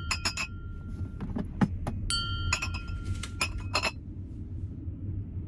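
Glass beer bottles clinking against each other as they are set down: a quick run of clinks, two of which ring on clearly for about a second, dying away about four seconds in.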